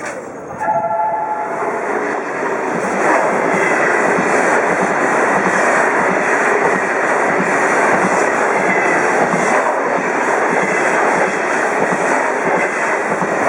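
A train running through the station: a loud, steady rush of wheels on the rails that builds over the first few seconds and then holds. A brief horn-like tone sounds about a second in.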